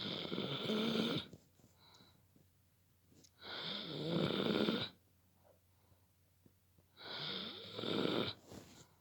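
A Dobermann snoring in its sleep: three snores, each about a second and a half long, coming about every three and a half seconds with quiet breaths between.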